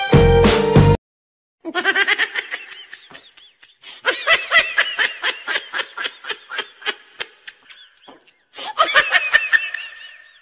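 Giggling laughter: quick repeated ha-ha pulses in three stretches, starting just after a short break in the music.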